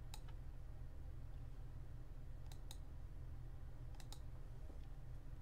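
Computer mouse clicking about five times, in three short groups roughly two seconds apart, over a steady low hum.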